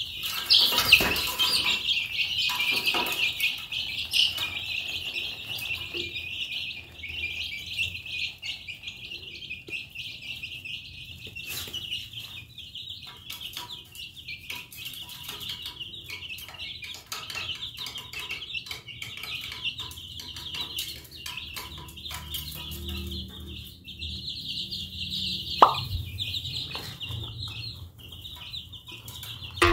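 Flock of baby chicks peeping continuously, many high-pitched peeps overlapping. Near the end, one short, loud tone swoops steeply down in pitch.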